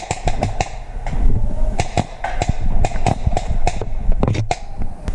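Paintball markers firing in irregular volleys of sharp pops, several a second, with a short pause about a second in, over a steady low rumble.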